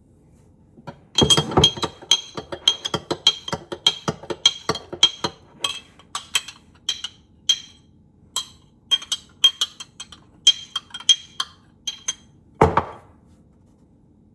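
A metal spoon clinking rapidly against a dish while stirring a sauce, about two to three clinks a second, each with the same short ring. The stirring ends with one heavier knock near the end.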